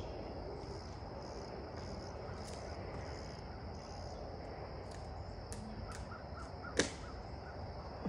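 Steady high insect drone, with a bird calling five short notes about three quarters of the way in and a single sharp snap just after.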